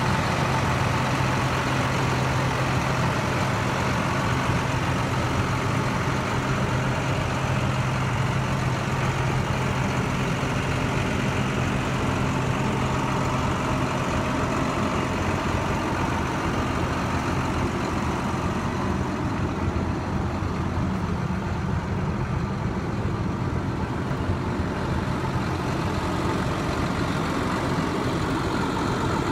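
2012 International 4300 dump truck's MaxForce DT inline-six diesel engine idling steadily, its low hum a little stronger in the first half.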